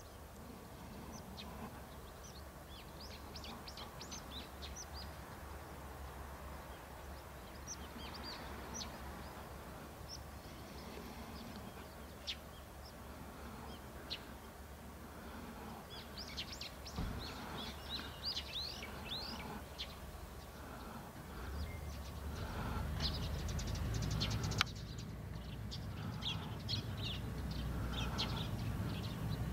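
Small birds chirping over and over, over a low steady rumble from a small diesel locomotive's engine that grows louder in the last several seconds. A single sharp click comes a few seconds before the end.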